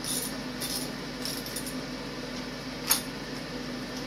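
Socket wrench working a spark plug loose from a Honda lawnmower engine: three short bursts of metallic clinking in the first second and a half, then a single sharp metallic click about three seconds in, over a steady low hum.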